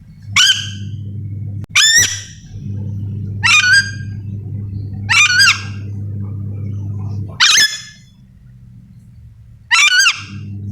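Ornate lorikeet (nuri dora) calling: six short, harsh, screechy calls, one every two seconds or so. A steady low hum runs underneath and drops out for a moment near the end.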